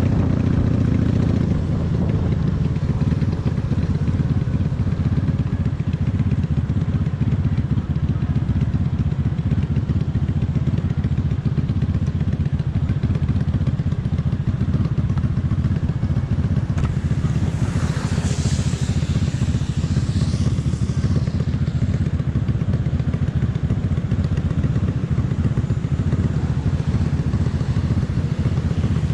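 Honda Magna VF750's V4 engine and exhaust running steadily while riding. A brief wavering high-pitched sound joins in about two-thirds of the way through.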